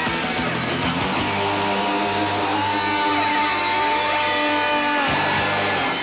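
Live rock band with distorted electric guitar playing the song's close: a few drum hits, then a long held chord ringing for several seconds, and final hits near the end as the music stops.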